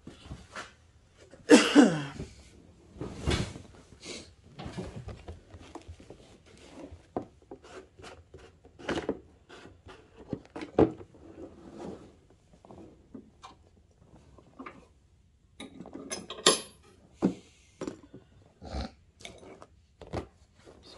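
Scattered clicks, knocks and rubbing of a red plastic gasoline can and its pour spout being handled and fitted, with a louder short whine falling in pitch about a second and a half in.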